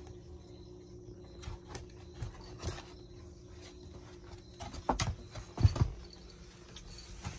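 Puppy paws padding and scuffling on the floor and quilt, uneven soft knocks with a few louder thumps about five to six seconds in.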